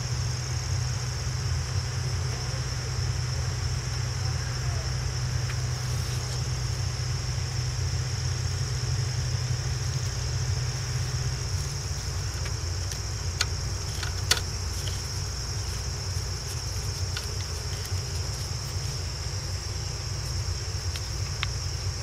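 Nissan Altima engine idling steadily, with a steady high-pitched tone alongside. A few light clicks come about halfway through and again near the end.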